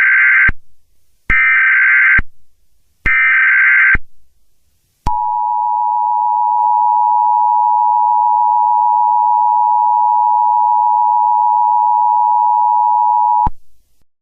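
Emergency Alert System tones: three short, screechy SAME header data bursts, each trailing off in a short echo, then the steady two-tone attention signal held for about eight seconds before cutting off.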